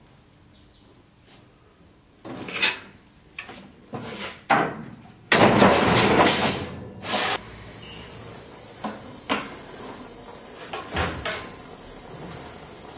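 Sheet metal handled on the bed of a guillotine shear, clattering and knocking from about two seconds in, then the loudest sound, a shearing stroke of about two seconds that cuts the sheet, around five seconds in. Afterwards a few light knocks.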